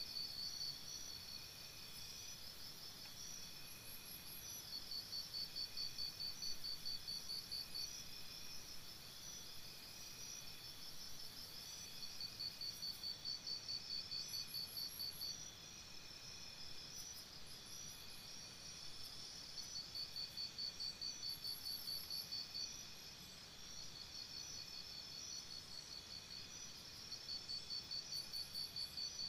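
Crickets chirping: several overlapping rapid pulsed trills that come in bouts of a few seconds, with fainter high chirps above them.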